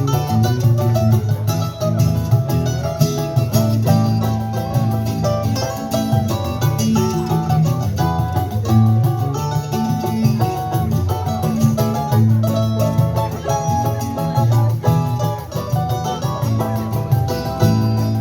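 Choro played by a plucked-string ensemble: a guitar with a busy, running bass line under a bright plucked melody, at a lively steady pace.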